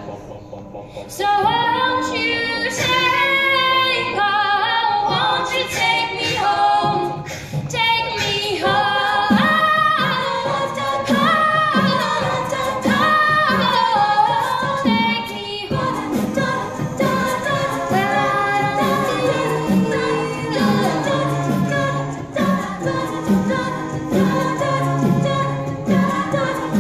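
A cappella group singing a pop song: a female lead voice over a choir of backing voices, with no instruments. After a short lull at the start the voices come back in fully, and through the second half a low backing part pulses in a steady rhythm under the lead.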